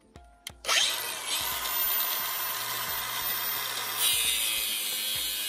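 Angle grinder with a cutoff wheel starting under a second in with a rising whine as it spins up, then cutting into rusty steel bed-mount nuts with a steady harsh hiss. The cut gets louder and brighter about four seconds in.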